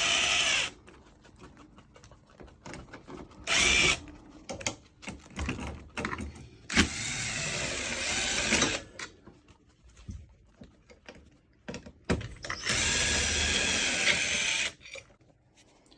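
Cordless screw gun with a 1/4-inch hex bit backing out hex-head mounting screws, running in four bursts, the longer ones about two seconds each. Light clicks of handling come in between.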